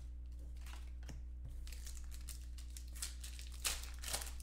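Trading-card pack wrapper crinkling and cards being handled, with two sharper crackles near the end.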